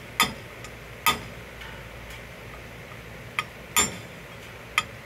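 Small hammer striking a brass punch set against the shoulder of a Mud-Skipper longtail's propeller, about five sharp metallic knocks at uneven spacing, knocking the prop loose from its shaft.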